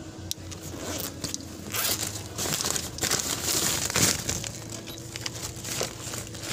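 Irregular rustling and crinkling with small clicks and scrapes: things being handled close to the microphone.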